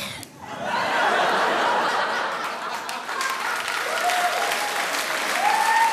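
Studio audience laughing and applauding: the clapping swells up about half a second in and carries on, with laughing voices over it.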